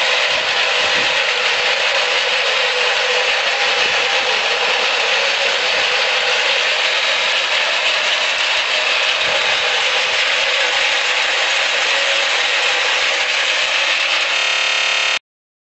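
Industrial electric meat grinder running under load, pushing meat out through its cutting plate with a steady grinding noise. The sound cuts off suddenly shortly before the end.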